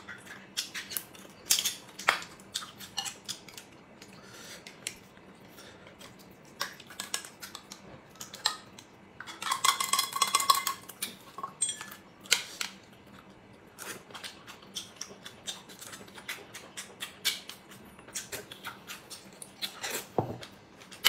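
Small tin of chili sauce being scraped out with chopsticks: scattered light clicks and clinks of chopsticks on the metal tin and the dishes, with a short squeaky scrape about ten seconds in. Near the end, a slurp from a bowl of rice porridge.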